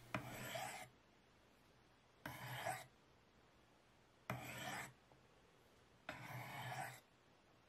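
Spyderco Tenacious knife blade drawn down the corner edges of a Spyderco Sharpmaker's fine white ceramic stones in the honing step: four strokes of steel scraping on ceramic, about two seconds apart, each under a second long.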